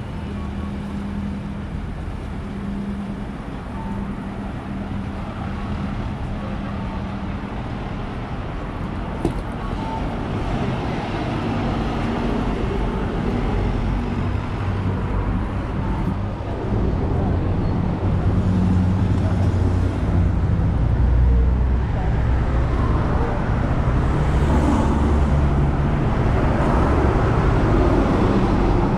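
City street ambience dominated by road traffic: a steady rumble of cars and other vehicles that grows louder over the second half as traffic passes close by.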